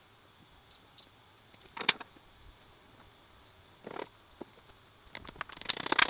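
Workshop handling noise: a single knock about two seconds in and another about four seconds in, then a quick clattering run of clicks and knocks near the end, as parts are handled and fitted.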